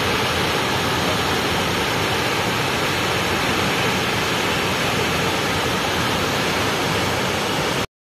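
Steady rushing roar of Chitrakot Falls, a broad river waterfall plunging over a cliff, holding at one even level. It breaks off abruptly near the end.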